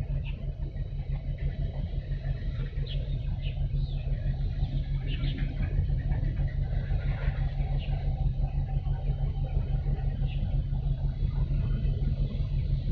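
Steady low rumble with short high chirps scattered through it.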